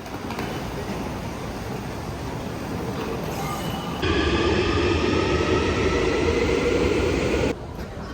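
Train running: a steady rumble and rush of noise. About halfway through it grows louder and a steady whine joins it. Both cut off suddenly near the end.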